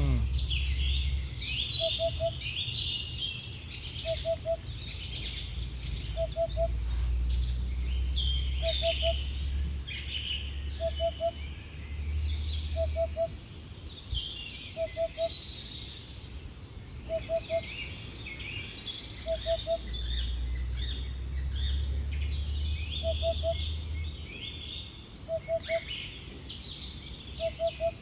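Many birds singing and chirping together, joined by a low call of three quick notes repeating about every two seconds. A low rumble comes and goes underneath.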